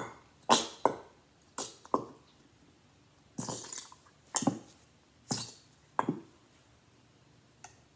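Bottle of colour-change school glue being squeezed out: about eight short, sharp squelches and sputters, spread irregularly, as glue and air are forced from the nozzle.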